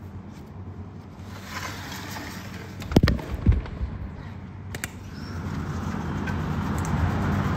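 Sliding glass balcony door being opened by hand, with a heavy clunk about three seconds in and a second knock half a second later, then a light click. Street traffic noise from the city below grows louder through the second half as the balcony opens up.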